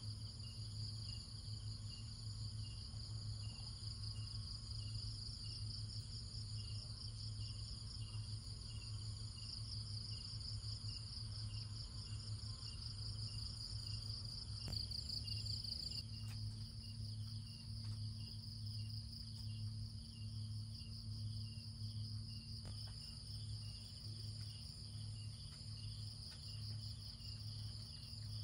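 Chorus of crickets and other insects chirping steadily in evenly repeating pulses, over a faint steady low hum.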